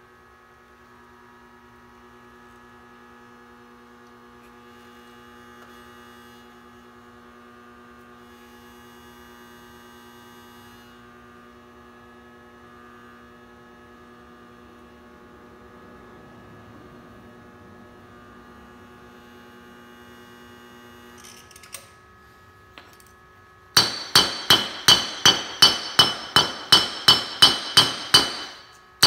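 Small 3 kW MOSFET half-bridge induction heater humming steadily with several fixed tones while a steel bolt heats red-hot in its copper work coil. Near the end a couple of faint clinks, then rapid hammer blows on a small anvil, about three a second, forging the red-hot bolt; these are the loudest sound.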